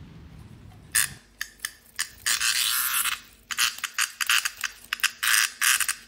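A hand-held adult Meimuna mongolica cicada giving a harsh buzz in bursts: a few short ones, one longer buzz about two seconds in, then rapid pulses about four a second. This is the squawk a cicada gives when it is handled.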